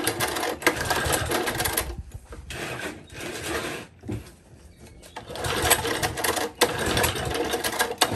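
Old Tecumseh four-stroke small engine being pulled over on its recoil starter, three pulls with short pauses between, the last one the longest. It does not settle into running; the owner expects the carburettor needs cleaning out.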